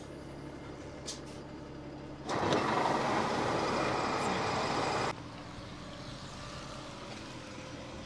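A vehicle engine idles steadily. About two seconds in, a loud, even hiss starts suddenly, holds for about three seconds, then cuts off just as suddenly.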